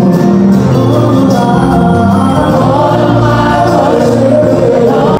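Gospel music with a choir singing, at a steady loud level throughout.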